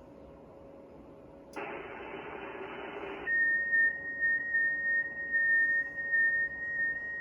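Amateur radio transceiver audio on 6-meter FT8: faint receiver hiss, a click about a second and a half in, louder hiss for under two seconds, then a single steady high whistle-like FT8 tone that comes in just after three seconds and wavers in level.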